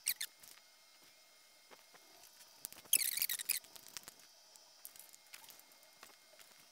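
Small metal handling sounds from setting up a tramming bar and dial test indicator on a milling machine: a short scrape at the start, then a louder squeaky rasp about three seconds in that lasts about half a second, with faint light ticks.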